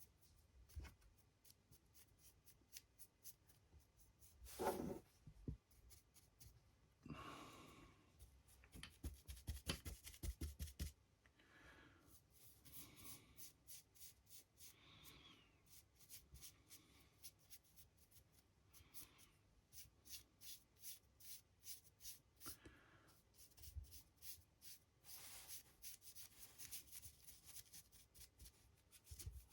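Faint, scratchy strokes of a paint brush dry-brushing over a 3D-printed model, in quick runs of many strokes, with a few louder bumps of handling the model.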